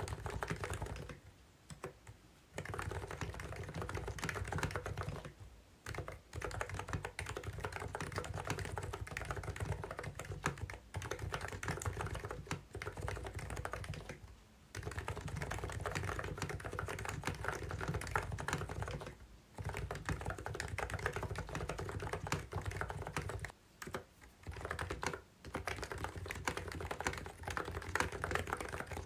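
Typing on the COX CNK84W electro-capacitive (non-contact) mini keyboard: a fast, continuous stream of keystrokes broken by a few short pauses.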